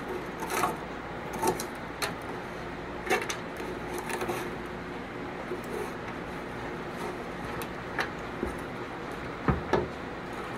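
Brush scraping leftover wood chips and grease out of the wood chip cup in the bottom of an electric smoker's non-stick pot: short scrapes and taps at irregular intervals.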